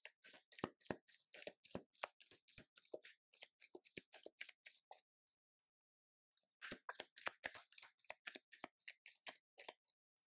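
A deck of tarot cards being shuffled by hand: a quick patter of card flicks and slaps for about five seconds, a pause of about a second, then the shuffling starts again.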